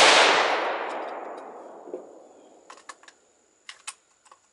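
A loud gunshot that begins a split second earlier and echoes away, fading over about two seconds, followed by a few light clicks and knocks as a rifle is handled.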